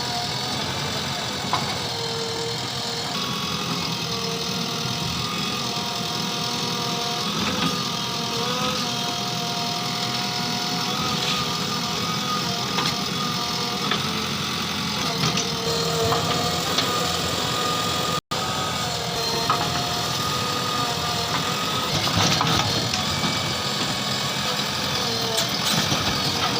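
JCB 3DX backhoe loader's diesel engine running steadily, with several whining tones that shift in pitch from time to time and occasional short knocks.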